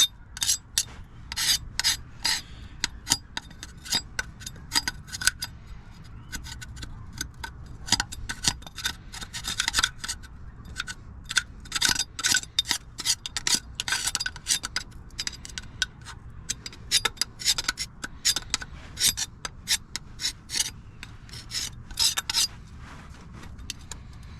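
Hand scraper scraping old RTV gasket sealant off the water pump mounting face of a Nissan 300ZX twin-turbo engine, in quick irregular short strokes with brief pauses. The strokes stop about two seconds before the end.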